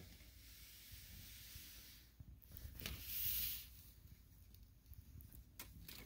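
Faint steady hiss of outdoor ambience, with a brief louder rush of hiss about three seconds in and a few light clicks.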